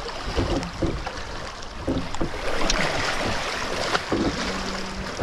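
Wake water rushing and splashing behind a sailing catamaran under way, with wind buffeting the microphone.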